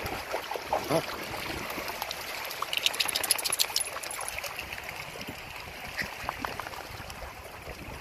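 Lake water splashing around a dog's legs as it wades through the shallows, with small waves lapping. A quick run of louder splashes comes about three seconds in.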